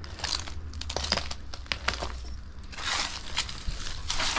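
Footsteps crunching over rubble and debris: irregular sharp cracks and crackles, with a denser stretch of crunching about three seconds in and again near the end.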